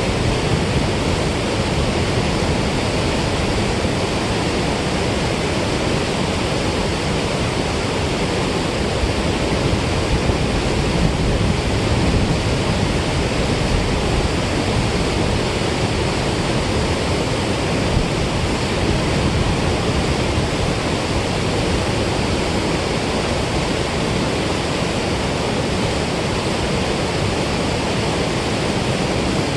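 Water rushing steadily through the Milford Lake dam spillway outlet, a loud, even, unbroken roar.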